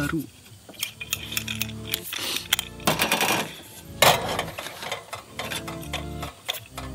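Clinks and knocks of metal camping cookware being handled, with a small kettle set down on a portable gas stove's pot supports about four seconds in, the loudest knock.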